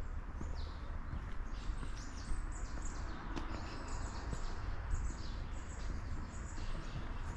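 Small birds chirping, many short falling calls in quick succession, over a steady low rumble, with a few faint clicks.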